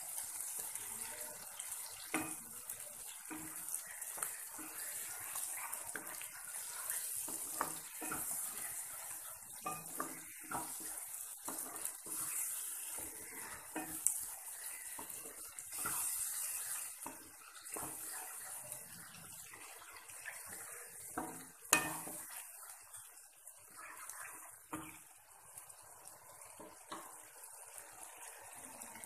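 A spatula stirring and scraping yogurt through a sizzling tomato masala in a nonstick kadai, with frequent light clicks of the spatula against the pan over a steady frying hiss and one louder knock late on. The yogurt is kept moving on the heat so that it does not split.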